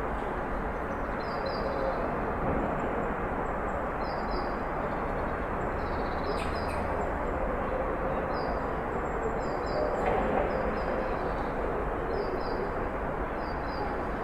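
Street ambience: a steady hum of traffic, with a small bird chirping in short doubled notes again and again over it.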